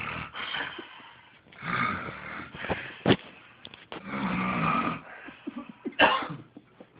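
A person snoring loudly while asleep. Each snore lasts about a second and comes roughly every two seconds, with a shorter, sharp snore near the end.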